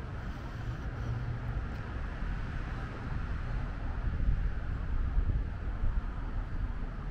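Outdoor background noise: a low, uneven rumble with a few louder gusts in the second half.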